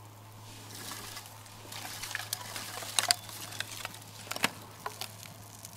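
Small kindling fire of dry twigs catching, with a soft rush of flame and then irregular sharp crackles and pops, the loudest about three seconds in.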